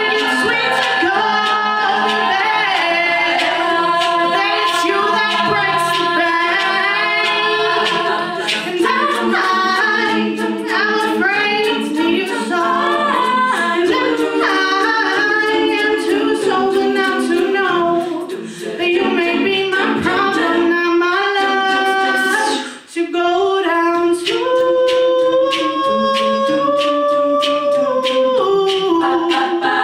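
Female a cappella group singing in harmony, a lead voice over layered backing voices, with sharp clicks keeping the beat. The singing breaks off briefly about three-quarters of the way through.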